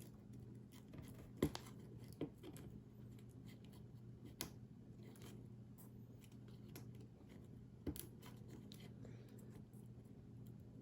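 Faint, scattered clicks and scratches of fingers and a small tool working at the ribbon-cable connectors inside an opened iPhone 5, about four sharper ticks, over a steady low hum.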